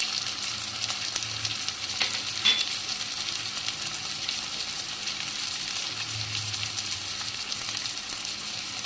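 Chopped onion, tomato and spices frying in hot oil in a pan with a steady sizzle, and the occasional sharp tap or scrape of the stirring spoon against the pan.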